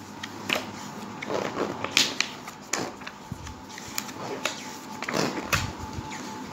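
Pages of a paperback children's encyclopedia being flipped by hand: paper rustling with a series of short, sharp page flaps and swishes.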